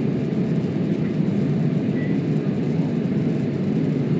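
Steady low rushing drone of jet engines and airflow inside an airliner's cabin in flight.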